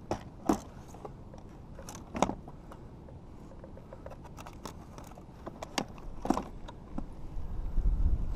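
Plastic gear clattering as ice fishing rods are lifted out of a sled's rod compartment among plastic tackle boxes: scattered sharp clicks and knocks. A low rumble builds near the end.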